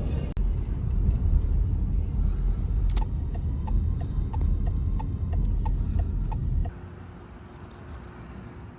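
Car driving, with a heavy low road rumble inside the cabin. From about three seconds in, the turn signal ticks steadily. Near the end the rumble drops away as the car slows or stops.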